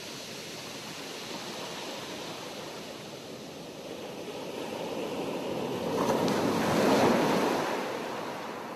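Sea waves on the shore: a steady hiss of surf that builds to a wave breaking about seven seconds in, then ebbs away.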